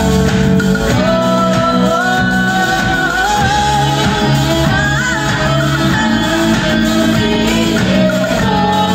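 A rock band playing live, with electric guitar, keyboard and drums, and a woman singing long, sliding notes over it, heard from within the audience.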